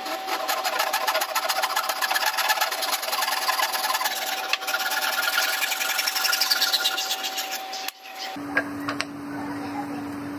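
Fine-toothed handsaw cutting across a thick wooden block held in a bench vise: quick, even rasping strokes that stop about eight seconds in. After that, a steady low hum with a couple of light knocks.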